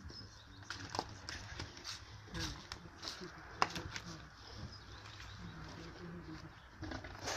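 Scattered light clicks and knocks of gear being handled, at irregular intervals, with faint voices in the background.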